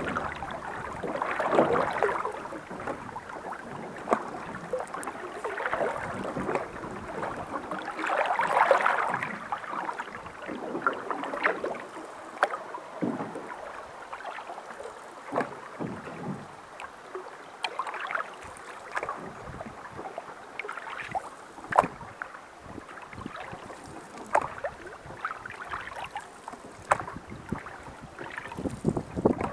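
Canoe paddle strokes in river water: irregular swishes and splashes as the blade digs in and pulls, with water dripping and many small sharp taps between strokes.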